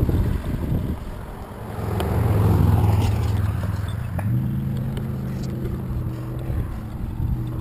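Wind rushing over a bicycle-mounted camera's microphone eases off as the bike slows at a road crossing. A passing car's noise swells and fades about two to three seconds in, and a low steady hum runs underneath, stepping up in pitch about four seconds in.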